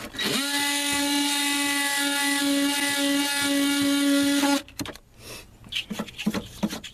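Oscillating multi-tool with a triangular sanding pad, running at a steady pitch while sanding paint off the body metal around a bolt hole for a ground connection. It starts at once, runs for about four and a half seconds and cuts off, followed by a few light handling clicks.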